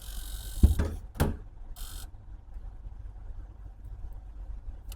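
Air hissing as a vacuum OCA laminating machine is opened, with two knocks within the first second or so and a second short hiss about two seconds in; a low machine hum runs underneath.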